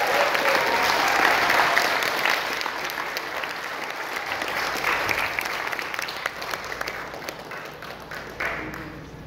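Audience applauding, loudest in the first couple of seconds and then dying away.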